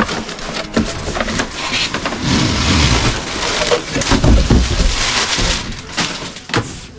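Cardboard box being handled and opened: irregular scraping, rustling and knocks of cardboard, with a longer stretch of rubbing from about two to five and a half seconds in.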